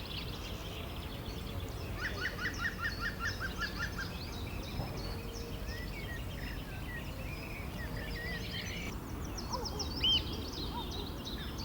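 Many birds chirping and singing over the steady low rush of a flowing river. About two seconds in, one bird gives a quick run of about ten down-slurred notes, and near the end there is a single louder call.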